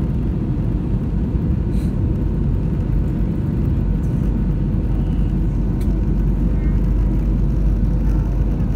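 Steady cabin noise inside an Airbus A320-216 in flight, heard from a window seat: a low rumble of airflow and the CFM56 engines, with faint steady hums.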